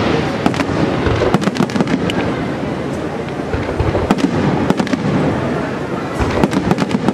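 Aerial firework shells bursting in quick succession: a dense run of sharp bangs over a continuous rumble.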